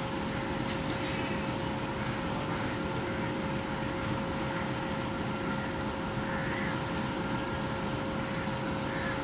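Diesel-electric locomotive engine running steadily at a standstill, a continuous rumble with a constant steady whine over it.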